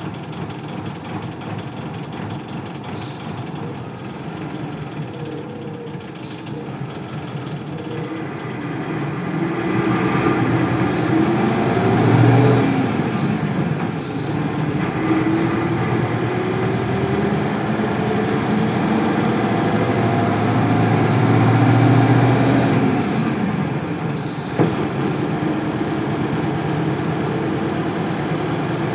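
Isuzu Cubic bus's 8PE1 V8 diesel engine running steadily at first, then rising in pitch and loudness as the bus gets under way. The sound drops suddenly twice, about thirteen seconds in and again about twenty-four seconds in with a sharp click, then runs steadily.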